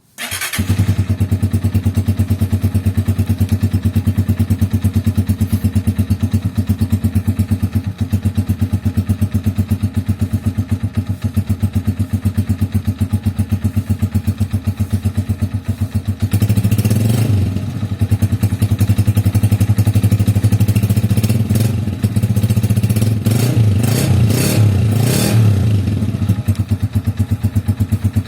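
Honda TMX 125 Alpha's single-cylinder four-stroke engine breathing through a Yutaka Contact Point KCS 125 aftermarket exhaust. It comes on right at the start and idles with an even, steady pulse. There is a rev about seventeen seconds in and several quick throttle blips near the end.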